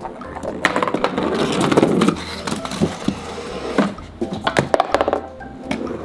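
A homemade cardboard chain-reaction contraption running: balls and toy parts rolling down cardboard ramps and knocking into one another. A rolling rumble builds to its loudest about two seconds in, with clattering knocks before and after.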